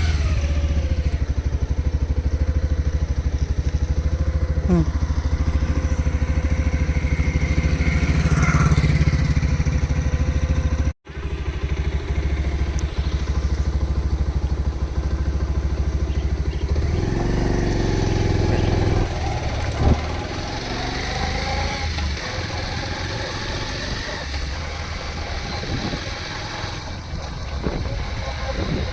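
Motorcycle engine running steadily, with a sudden break of a fraction of a second about eleven seconds in.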